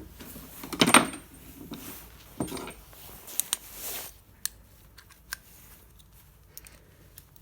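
Handling a small metal screw and a screwdriver: a rustle and clatter about a second in, then a scattering of light metallic clicks and taps as the screw is fitted.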